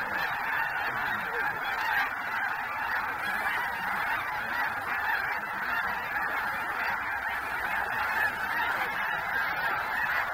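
A huge flock of snow geese calling all at once: a continuous, dense din of overlapping honks with no break.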